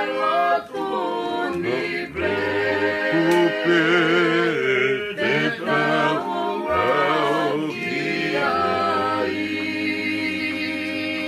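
A man singing a slow song with long held notes, one of them wavering about four seconds in, with acoustic guitar accompaniment.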